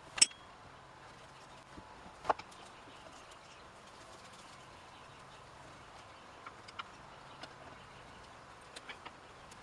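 A few light clicks and clinks of small metal parts and tools being handled while a chainsaw is taken apart. The sharpest come right at the start and about two seconds in, the second with a brief ring, and fainter ticks follow near the end, over a low steady background.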